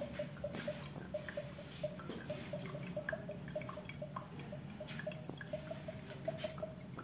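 Coconut water dripping from holes punched in a coconut's eyes into the water already collected in a glass below: a quiet, steady run of small drips, about three or four a second.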